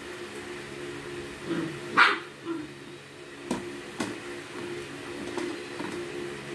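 A dog barks once, short and sharp, about two seconds in, with a softer yelp just after, over a steady low hum. A few light clicks of food being handled on a plate follow.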